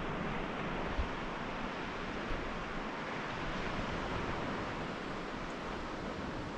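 Steady rush of sea surf on the shore, mixed with wind, with a soft low bump about a second in.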